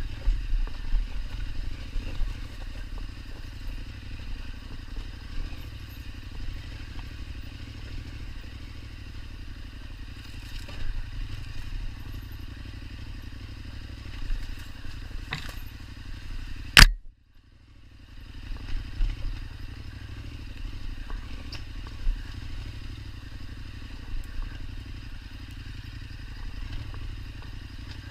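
KTM 1290 Super Adventure's V-twin engine running steadily at low revs while riding, with scattered clicks and clatter. About 17 seconds in there is a single sharp knock, the loudest sound, and then the sound nearly drops out for about a second before the engine is heard again.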